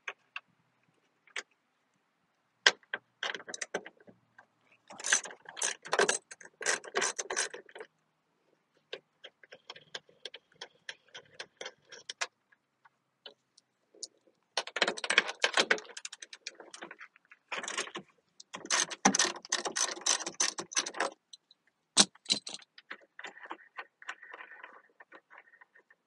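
Socket ratchet wrench clicking in quick runs, about five bursts with short pauses, as the 11 mm bolts of a car door mirror are unscrewed.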